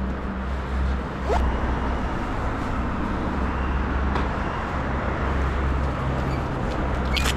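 BMW R 1250's boxer-twin engine running with a steady low hum that swells and eases a few times, over a constant rushing noise. Two brief rising squeaks cut in, about a second in and near the end.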